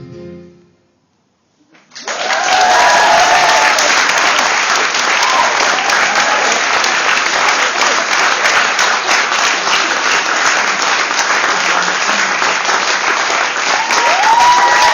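The last held chord of a group of singers fades out, then after a moment of near silence an audience breaks into loud, sustained applause, with a few voices calling out over it.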